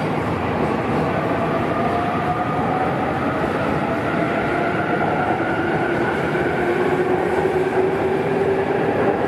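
Electric train accelerating, its motors whining in a slow rise in pitch over steady running noise on the rails.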